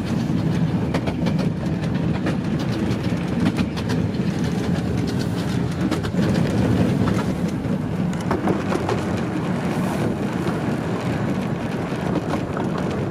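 Romney, Hythe and Dymchurch Railway 15-inch gauge miniature train running along the line, heard from aboard a carriage: a steady rumble of wheels on rail with frequent sharp clicks.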